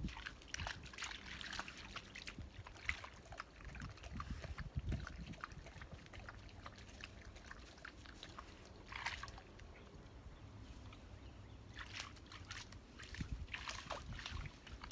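Dogs wading in shallow pond water, with faint sloshing, small splashes and scattered light clicks, and a few louder splashy bursts about a second in, near the middle and toward the end.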